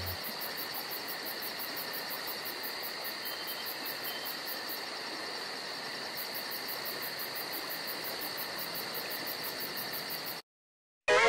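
Insects chirping steadily in a fast, even pulsing rhythm over a soft outdoor hiss, cutting off abruptly about a second before the end.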